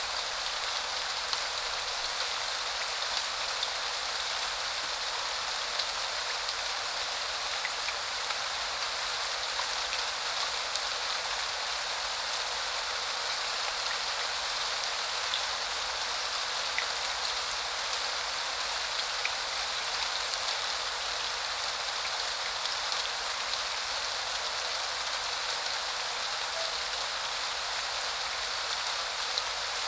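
Steady rain falling: an even hiss of rainfall dotted with many small drop ticks.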